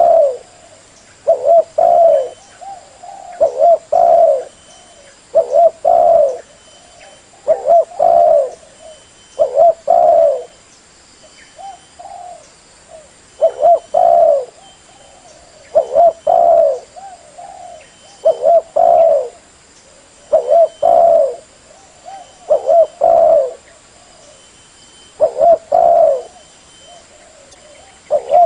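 Spotted dove cooing over and over, a short coo phrase about every two seconds. It is a decoy dove's call, used to lure wild spotted doves.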